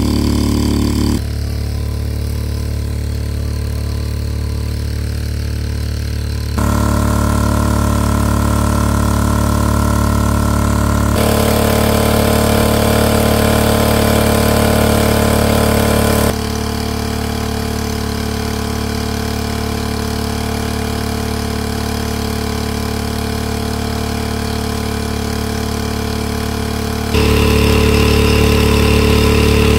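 Small engine-driven water pump running steadily, draining a pool, its sound shifting abruptly several times. Near the end, the louder stretch comes with the pump's discharge splashing onto grass.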